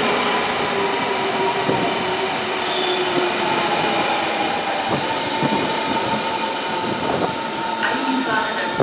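Berlin S-Bahn electric train running past along the platform: a steady whine from the wheels and motors, its tones drifting slightly lower, with a few clicks of the wheels over rail joints.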